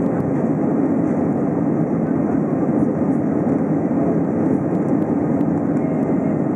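Steady roar of an Airbus A320's jet engines and airflow heard inside the passenger cabin in flight, even and unchanging throughout.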